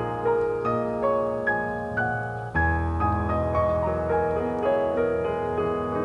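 Soft, slow piano music, single notes struck about every half second over sustained chords, with a new low bass note about two and a half seconds in.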